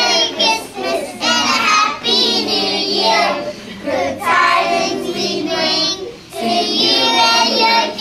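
A group of young children singing together in sung lines with short breaks between them.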